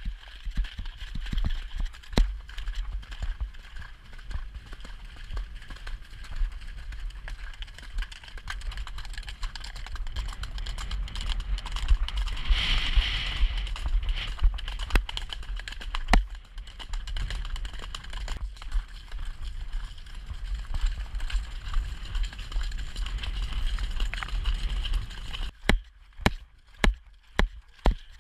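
A ridden horse's hooves beating on a wet, muddy track, with wind buffeting the rider's camera microphone into a steady low rumble. Near the end the hoofbeats come through as distinct thuds, about two a second.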